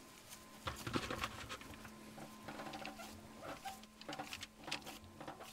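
Hands pressing and patting raw ground beef into shape over a cheese-filled meatloaf: faint, irregular soft pats and squishes.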